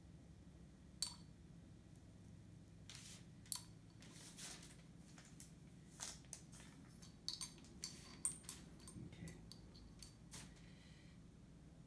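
Scattered light clinks and taps of a metal marbling stylus against small glass paint jars: single taps early on, then a quicker run of a dozen or so. A faint steady low hum runs underneath.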